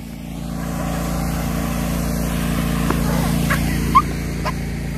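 An engine running steadily with a low, even hum that swells over the first second and then holds. A short high squeak about four seconds in.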